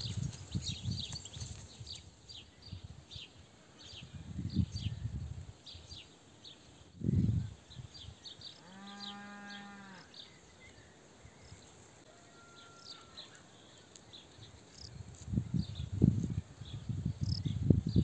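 A farm animal gives one drawn-out call about halfway through, lasting about a second and a half, over continuous high chirping from small birds. Low gusts of wind buffet the microphone near the start and again near the end.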